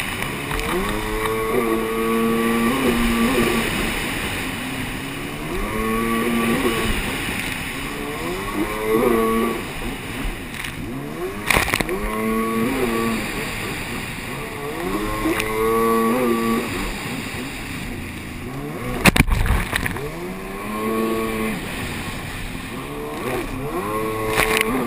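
A racing jet ski's engine, heard from on board, revving up and easing off again and again as it rounds the turns, over a steady rush of spray and wind. Two sharp thumps cut through, the louder one near the end.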